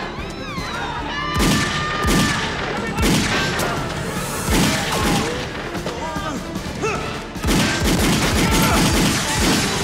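Movie action soundtrack: several loud pistol shots, a second or more apart, each ringing out, over dramatic score music.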